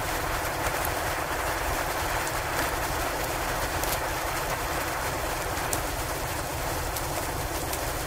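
Steady wind-and-snowstorm noise with a few sharp crackles from a log fire.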